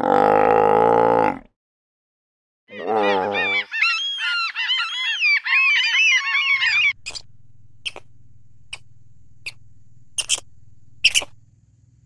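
A sea lion's low groaning call, cut off after about a second and followed by a short silence. Then a large gull calls: a long run of repeated high, arching cries. In the last few seconds, about seven short, sharp clicks sound over a steady low hum.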